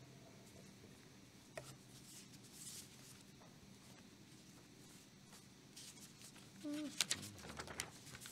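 Sheets of paper rustling and being shuffled at a pulpit, faint, with a soft knock about one and a half seconds in and louder rustling and clicks near the end.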